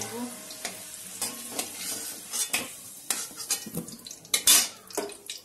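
Flat metal spatula scraping and clinking against a metal karahi as fried potato chunks are stirred and lifted out of sizzling oil. The scrapes come irregularly, the loudest about four and a half seconds in.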